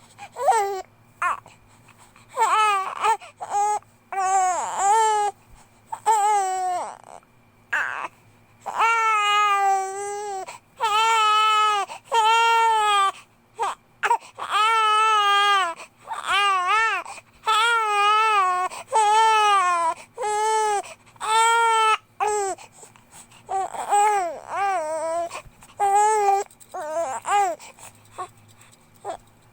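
A two-month-old baby crying: a run of wails about a second each with quick breaths between, shorter and choppier at first, longer and steadier in the middle, then shorter again near the end.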